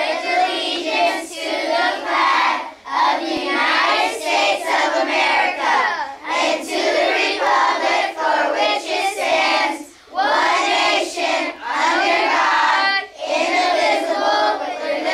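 A class of schoolchildren reciting the Pledge of Allegiance together in unison, phrase by phrase, with short pauses between phrases.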